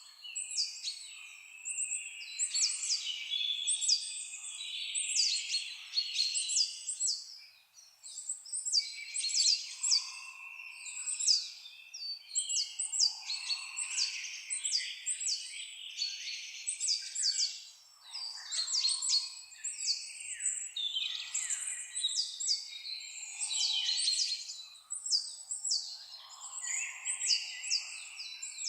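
Small birds singing and chirping almost without pause: runs of quick, high descending chirps over lower warbling, with brief lulls.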